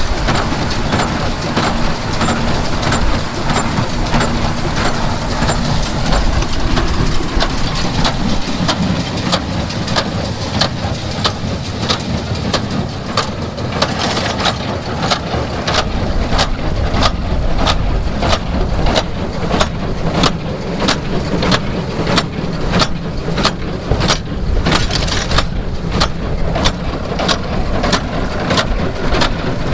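Conventional small square baler working behind a tractor, its plunger knocking regularly about one and a half times a second over the steady running of the tractor engine.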